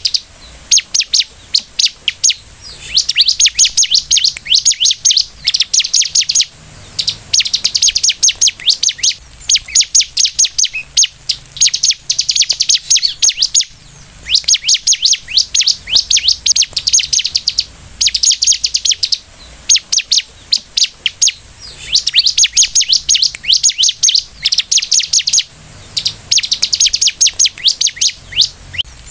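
Bar-winged prinia (ciblek) singing: repeated fast runs of sharp, high chirping notes in phrases a second or two long, with short pauses between them.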